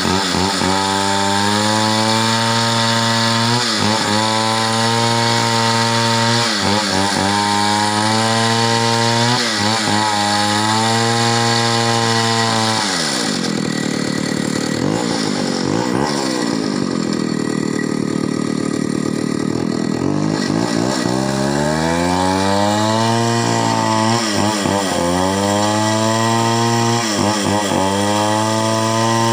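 Chainsaw engine running at high revs, its pitch dipping briefly every couple of seconds as it bogs in the cut. About halfway through it drops to a lower speed for several seconds, then revs back up and carries on cutting.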